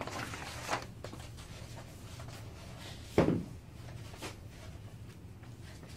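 Quiet room with a faint steady hum, light handling of masking paper near the start, and a single dull thump on wood about three seconds in.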